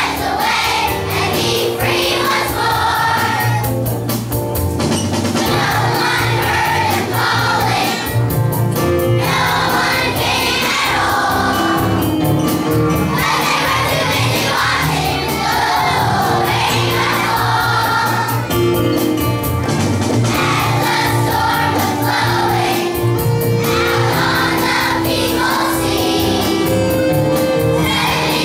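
Children's choir singing together with instrumental accompaniment.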